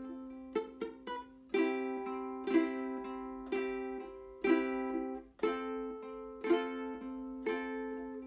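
Ukulele strummed in chords, with no singing: about one firm strum a second, a few quick lighter strokes in between, each chord ringing on and fading before the next.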